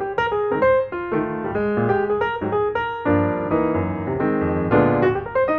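Background piano music: a melody of single notes, with fuller chords coming in about three seconds in.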